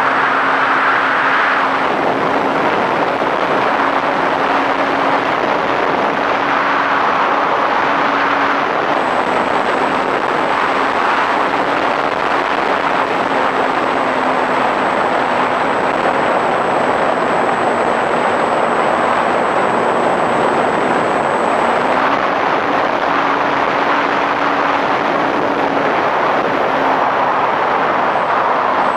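Flyzone Switch RC plane in flight, heard from its onboard camera: the electric motor and propeller give a steady low hum that dips and rises slightly with the throttle, under a loud rush of air and propeller noise.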